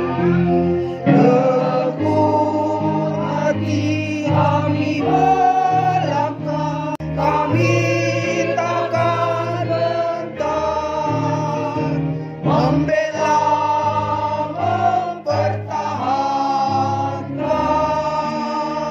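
A choir singing a song with instrumental accompaniment, the voices moving through the melody over steadily held low notes.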